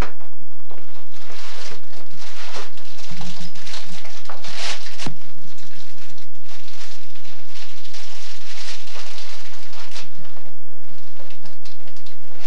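Paper and card rustling and crinkling in irregular bursts with small clicks and knocks as a baby handles a gift on a high-chair tray, over a hiss and a low hum that comes and goes.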